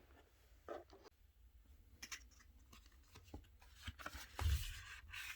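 Faint handling noises of dice and their packaging: scattered light clicks and taps, a dull bump about four and a half seconds in, and a short rustle near the end.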